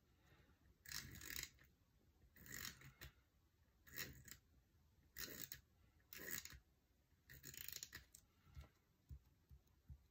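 Correction tape dispenser drawn across paper in about six short scraping strokes, roughly one a second, laying tape over printed lines, followed by a few faint taps near the end.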